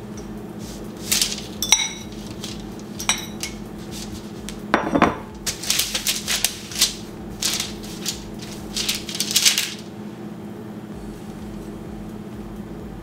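A metal fork clinking and scraping against a ceramic mixing bowl, knocking sticky dough out with a few ringing clicks. About five seconds in comes a heavier knock as the bowl is set down on the counter, followed by a run of scraping as the fork works the dough on parchment paper. It goes quiet at about ten seconds, leaving only a faint hum.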